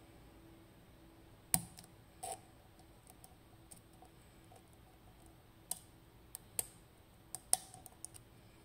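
Lock pick and tension wrench single-pin picking a FAB 3-star pin-tumbler lock: sharp metallic clicks at irregular intervals, a few louder than the rest, as the pins are lifted and set, with some dropping again.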